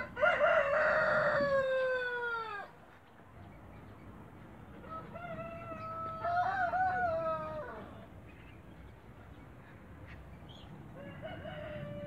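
A rooster crowing three times: a loud crow right at the start that ends in a falling glide, a fainter crow about five seconds in, and another beginning near the end.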